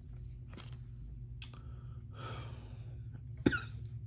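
A soft breath or sigh about two seconds in, then one sharp click about three and a half seconds in, over a low steady hum.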